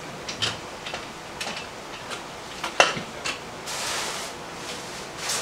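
Kitchen clatter: scattered light clicks and knocks of jars, lids and utensils handled on a counter, with one sharper knock about three seconds in and a brief rustle about a second later.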